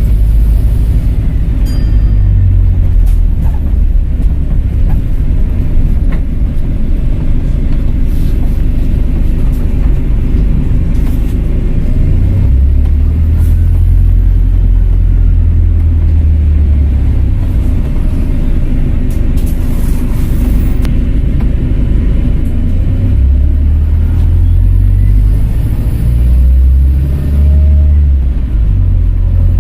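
Volvo B5LH hybrid bus's diesel engine and drivetrain running on the move: a steady deep rumble that swells and eases, with faint rising and falling turbo whistles.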